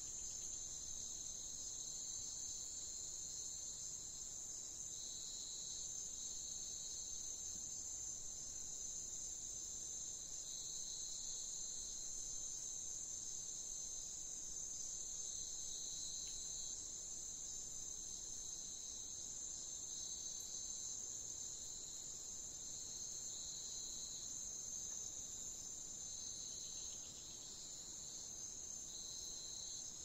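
Steady high-pitched chorus of insects, crickets or cicadas, with a second, lower trill that keeps starting and stopping.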